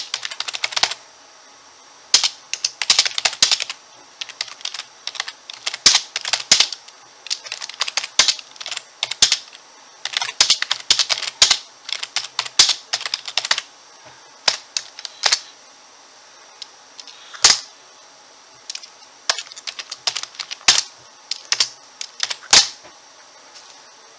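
Typing on a backlit computer keyboard: quick runs of key clicks broken by short pauses, with a few single louder keystrokes. The typing stops a second or two before the end.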